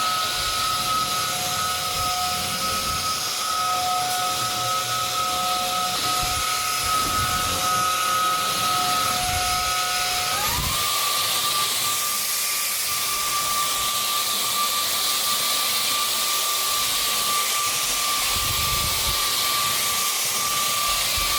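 MOOSOO K17-Pro cordless stick vacuum cleaner running steadily, a rushing airflow with a high motor whine. About halfway through, the whine changes pitch and settles at a new steady note.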